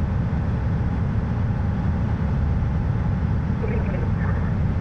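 Steady low rumble of airflow and engine noise inside an Airbus A320 cockpit in flight.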